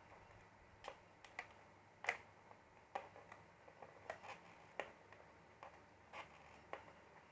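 About a dozen light, irregular clicks and taps of plastic and small tools on a Lenovo ThinkPad Z61t laptop as it is being taken apart, the sharpest about two seconds in.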